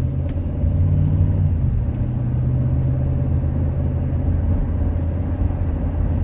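Ram pickup's freshly rebuilt Hemi V8 and road noise heard while driving, a steady low drone whose pitch drops slightly about a second and a half in.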